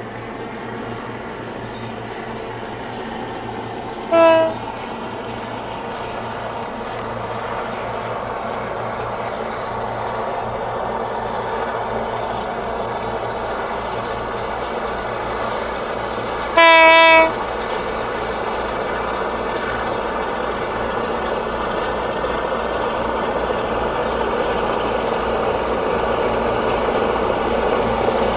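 Diesel locomotives of a long Babaranjang coal train approaching, their engine rumble growing steadily louder. The lead locomotive sounds its horn twice: a short toot about four seconds in and a longer blast of under a second around seventeen seconds in.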